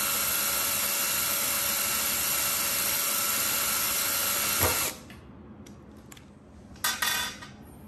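Bosch cordless drill running steadily with a high whine while driving a self-tapping screw through the plastic wall of a soap-dispenser refill bottle. It cuts off about five seconds in, and two short bursts follow near the end.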